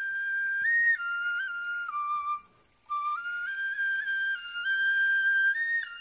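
Shinobue (Japanese bamboo transverse flute) playing a slow melody in high, clear held notes that step up and down, with a short breath break about two and a half seconds in.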